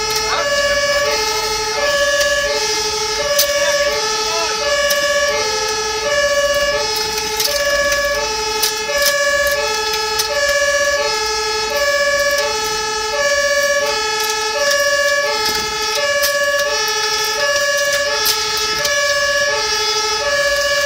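German two-tone fire-engine siren (Martinshorn) on an LF10 fire engine during an emergency run, alternating evenly between a lower and a higher tone, each held for under a second. It is heard from inside the cab, with the truck's engine and road noise running underneath.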